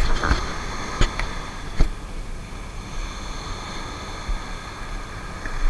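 Small waves breaking and washing up the sand in a steady hiss, with wind rumbling on the microphone. A few sharp knocks come in the first two seconds.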